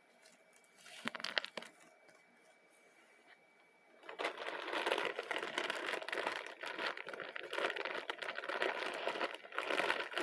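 Bag of foil-wrapped chocolate coins crinkling and rustling as it is handled: a short rustle about a second in, then steady crinkling from about four seconds in.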